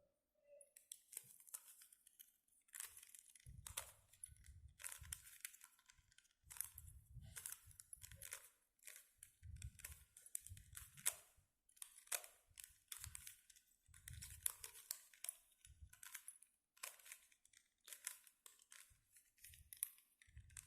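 Plastic Rubik's cube being turned face by face by hand: a faint run of short clicking and scraping twists, roughly one every half second to a second, some with a soft thud of handling.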